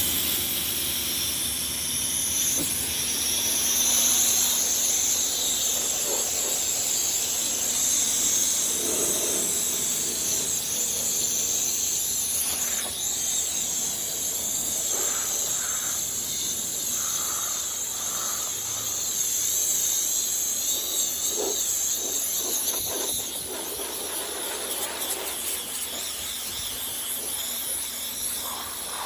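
Kärcher K3 Power Control electric pressure washer spraying a jet of water onto a car's side panels and sills on its medium setting, a steady hiss of spray against the bodywork. The hiss eases a little near the end.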